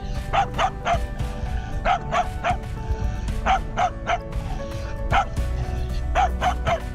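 Small white spitz-type dog barking, short barks in groups of two or three that repeat about every second and a half, over background music.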